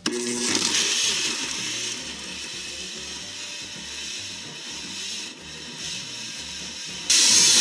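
Countertop blender switched on and running, blending fruit, frozen blueberries, frozen spinach and water into a smoothie. It is loudest for the first second or so, then runs more steadily, and a sudden louder noise cuts in just before the end.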